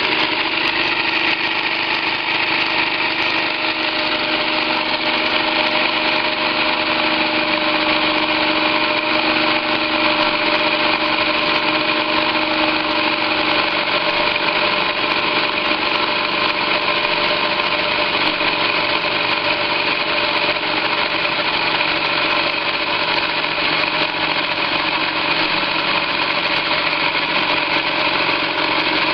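Live-steam model crane's steam engine running fast, a steady hiss and whir, as its main winch pays out to lower the load quickly.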